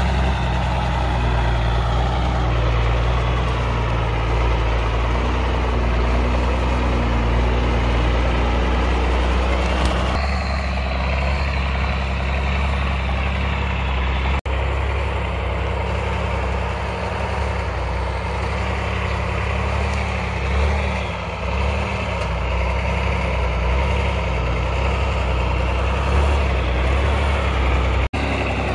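Diesel engine of a REO M-series 2½-ton 6x6 military cargo truck running steadily as the truck drives slowly over rough ground. The sound drops out for an instant about halfway through and again near the end.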